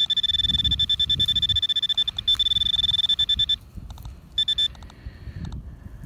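Metal detecting pinpointer giving its rapid pulsing high-pitched buzz alarm against a clump of soil, the sign that it is right on a metal target (an iron object in the clump). The tone cuts off about three and a half seconds in and comes back for a short burst a second later, over the low rustle of fingers crumbling dirt.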